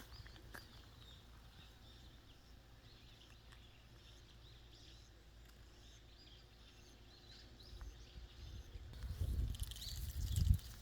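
Faint outdoor garden ambience with small birds chirping now and then. A low rumble swells up over the last few seconds, with the chirping getting busier at the same time.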